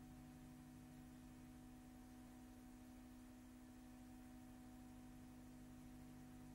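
Near silence: a faint, steady hum with light hiss, and no other sound.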